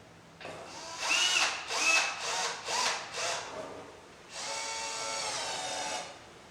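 Power drill driving screws into a drawer runner: about five short trigger bursts with the motor pitch rising and falling, then one steadier run of about a second and a half as a screw is driven home.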